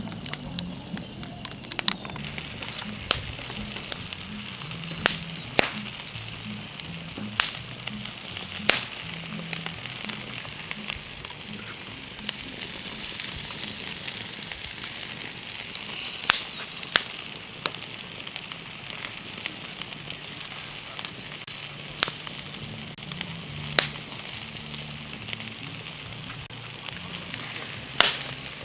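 Wood fire crackling with irregular sharp pops over a steady hiss of chicken and pork sizzling on a grill grate.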